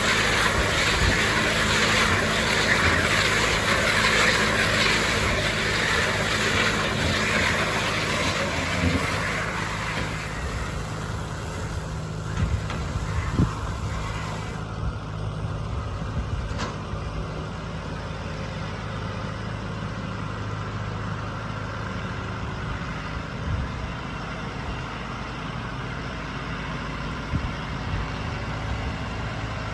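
Deutz-Fahr 5130 TTV tractor running steadily with a Criap midi baler. A loud hiss over the machinery fades out about ten seconds in, and a few sharp knocks come through later.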